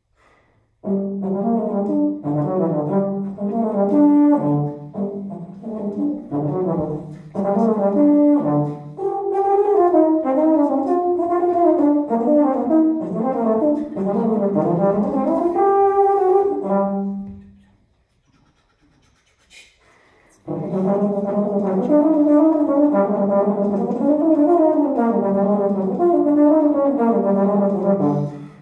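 Solo euphonium playing an unaccompanied melodic passage of leaps and quick runs, breaking off for about three seconds some two-thirds of the way through and then going on.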